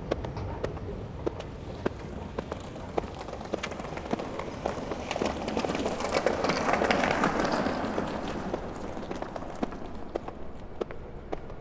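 Foley footsteps of someone running: a steady run of sharp taps over a low rumble. A broad rushing noise swells and fades in the middle, loudest about seven seconds in.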